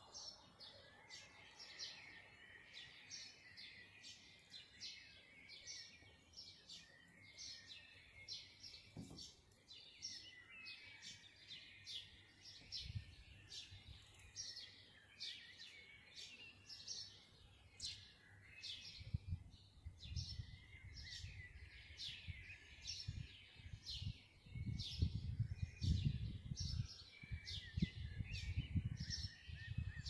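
Small birds' dawn chorus: many short, high chirps and tweets, densely repeated. From about thirteen seconds in, a low irregular rumble joins, and it is the loudest sound over the last ten seconds.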